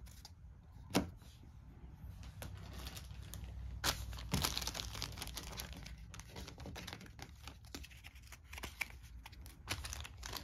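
Clear plastic bag of game cards crinkling as it is handled, the crinkling starting about four seconds in, after a couple of sharp taps from cards being set down.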